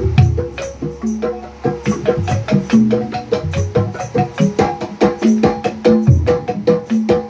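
Sundanese calung ensemble playing: sets of bamboo tubes struck quickly with mallets in busy, interlocking melodic runs. Deeper low strokes sound underneath now and then, one near the start and a heavier one a little after six seconds.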